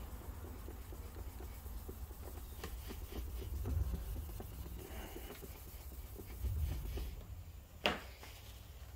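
Hand wet sanding with 1500-grit paper on a small block, rubbing back and forth over a painted wing mirror cover to flatten dried solvent touch-up paint filled into deep scratches: a soft, scratchy rubbing. A single sharp click comes near the end.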